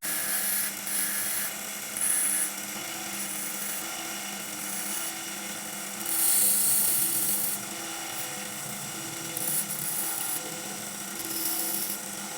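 A small high-speed power tool running with a steady whine of several tones, with louder hissing surges about two seconds in and again between six and seven and a half seconds in as it cuts or grinds metal.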